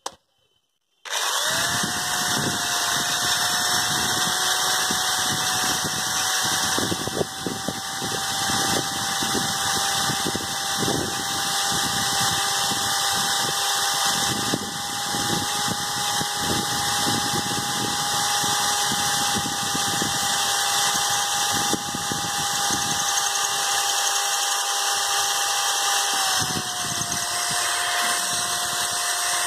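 A green drill-driver starts about a second in and runs steadily, its motor whine dipping slightly in pitch near the end, while the bit scrapes and grinds against a plastered concrete pillar. The drill is making little or no headway into the concrete.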